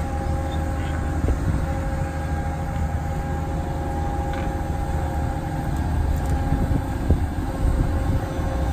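Diesel power pack of a Mammoet self-propelled trailer running steadily, with a steady whine over the engine, under heavy wind rumble on the phone's microphone.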